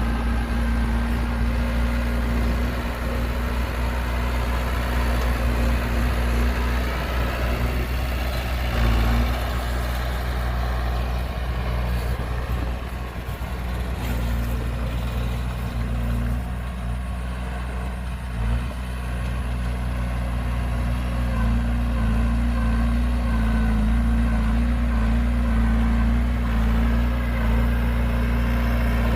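Heavy diesel engine running steadily at an even, low pitch.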